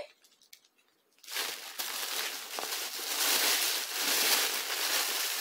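Plastic packaging crinkling and rustling as a plastic-wrapped item is pulled out of a plastic mailer bag, starting about a second in after a brief silence.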